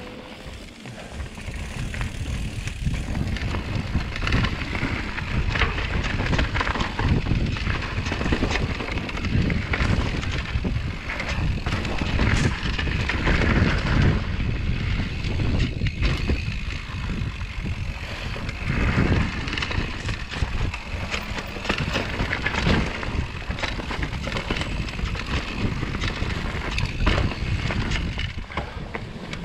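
Mountain bike rolling down a dirt singletrack: tyre and trail rumble with frequent knocks and rattles as the bike runs over bumps, and wind rushing on the microphone.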